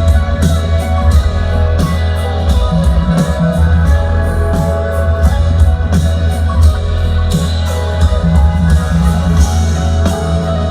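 Loud live electronic music with a heavy sustained bass, a steady beat and a plucked, guitar-like melody.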